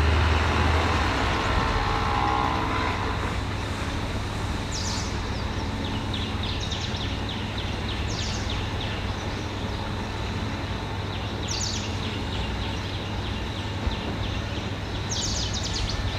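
Heavy machinery running steadily, louder for the first few seconds, with short bursts of high clicking every few seconds.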